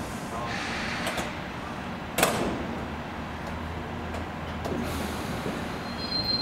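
JR Central 211-series electric train standing at the platform with a steady low hum. About two seconds in comes a sudden, loud hiss of air. Near the end a thin high squeal starts as the train begins to move off.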